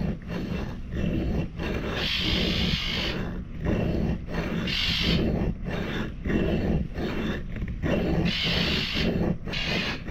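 Steel striker being ground on a rough sharpening stone with hard back-and-forth strokes, about two a second. It makes a rasping scrape as a new edge is roughed in.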